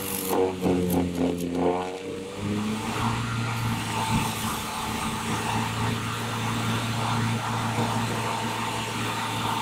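High-voltage current arcing and tracking through a damp rope held against an energized power line. The electrical buzz wavers in pitch for about two seconds, then settles into a steady low hum with hiss. The rope is wet and has become a conductor.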